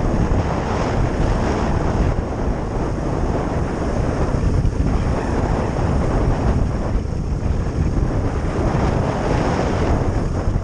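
Wind rushing over the microphone of a camera on a moving Suzuki DR350SE trail bike, mixed with the bike's single-cylinder four-stroke engine running under way. The noise is steady, with no gear changes or breaks.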